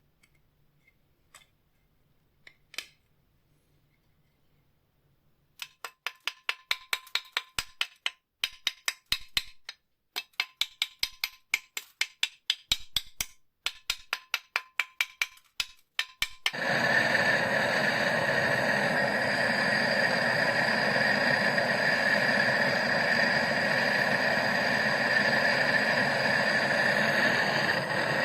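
Runs of sharp metallic knocks, about four a second, with short pauses, typical of tapping on a metal tool. About sixteen seconds in, a powered workshop tool starts and runs steadily with a constant whine.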